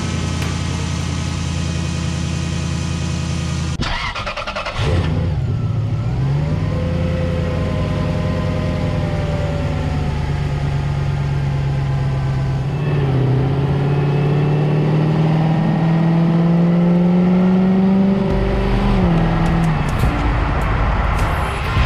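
Lexus GS400's 1UZ-FE V8 engine running, turning an accessory belt on a freshly installed tensioner. After a short break about four seconds in, engine speed climbs slowly and steadily, then drops back near the end.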